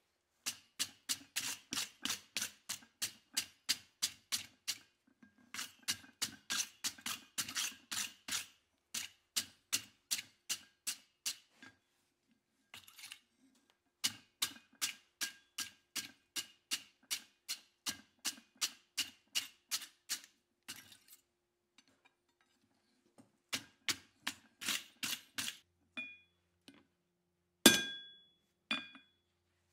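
Hand hammer striking a red-hot steel hot-cut blank, made from an old hammer head, on an anvil: steady runs of about three blows a second with short pauses between runs. Near the end comes one louder blow that leaves the anvil ringing briefly.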